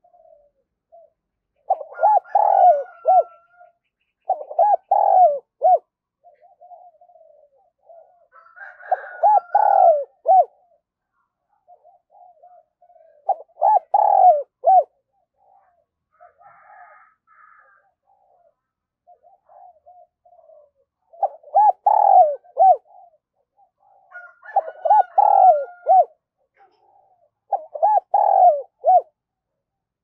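Spotted dove cooing at close range: seven phrases of several deep coo notes each, every few seconds, with softer single coos between them and a longer pause midway.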